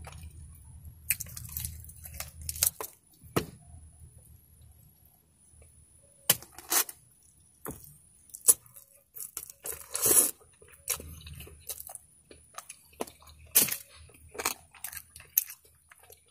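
Close-up eating sounds of a person working on a sauced fried chicken wing: irregular crunching of the fried coating, chewing and lip smacks. A plastic fork scrapes in a foam take-out box near the end.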